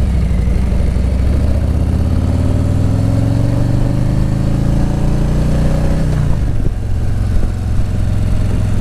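2017 Harley-Davidson Street Glide Special's V-twin engine pulling down the road. Its pitch rises steadily for about four seconds, falls back around six seconds in, then holds steady at a cruise.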